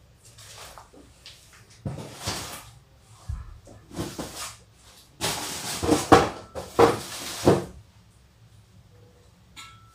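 Rummaging and shuffling of objects on a desk, in several short irregular bursts with light knocks, while searching for a lost keycap.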